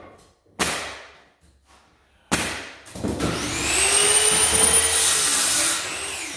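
Two sharp bangs of a pneumatic flooring nailer driving nails into hardwood boards, about a second and a half apart, ringing in the bare room. Then a motor spins up with a rising whine and runs loudly for nearly three seconds before dropping off.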